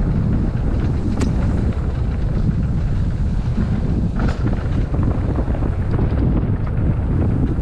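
Wind buffeting the microphone of a camera on a moving e-mountain bike, a steady rumble, with a couple of brief sharp knocks about a second in and about four seconds in.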